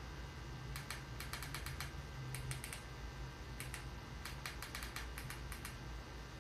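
Light, quick typing clicks in several short runs with pauses between them, over a steady low hum.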